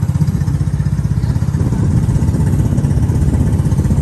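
Motorboat engine running steadily at cruising speed, a low, rapid, even chugging.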